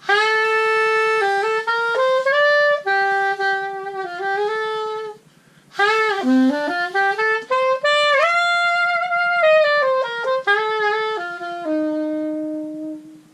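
GT Sax nickel-silver-plated two-piece soprano saxophone played solo: two melodic phrases with a short break about five seconds in, the second ending on a long held low note. Its tone is nice and free blowing, not tight.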